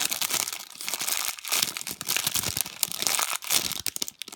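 Plastic packaging bag crinkling steadily as a squishy toy in it is handled.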